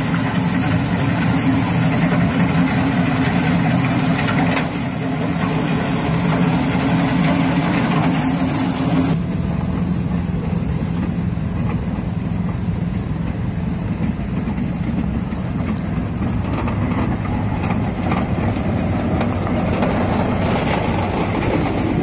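Heavy snow-clearing truck engines running steadily, with a low hum. About nine seconds in, the sound changes abruptly as a truck with a front snow blower gives way to a snowplow truck.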